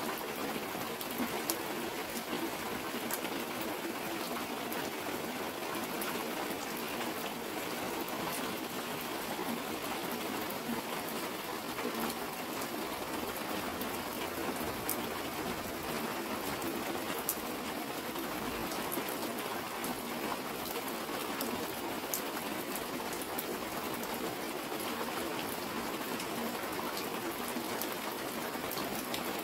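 Steady rain falling, with drops pattering on a clear plastic sheet close by. It is an even hiss dotted with many small sharp drop ticks.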